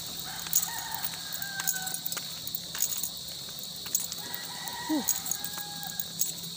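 Steady high chirring of crickets, with a distant rooster crowing twice, each call drawn out for about a second and a half.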